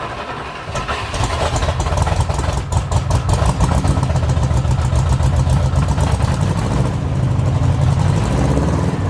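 Engine of a 1972 International Harvester Scout II running, getting louder about a second in and then holding steady.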